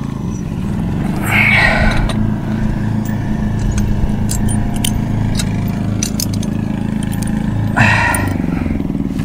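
An engine running steadily with a low, slightly pulsing hum, with light clicks and two brief noises, one about a second and a half in and one near the end.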